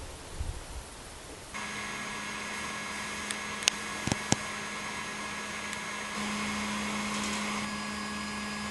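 Steady machine hum with several fixed tones from equipment running in an observatory telescope dome, starting abruptly about a second and a half in, with a few sharp clicks in the middle. The hum gets a little louder about six seconds in. Before the hum there is a faint rushing noise with a few low thumps.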